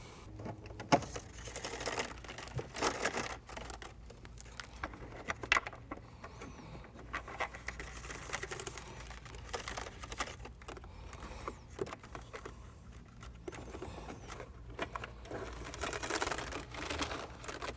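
Hands feeding a wire behind plastic dash and pillar trim: soft rustling and scrapes with scattered light clicks.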